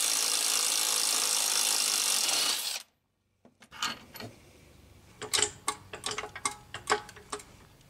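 Cordless impact tool running steadily for nearly three seconds as it spins out the 15 mm bolt of a strut torque mount, then stopping abruptly. Light clicks and rattles of metal parts being handled follow.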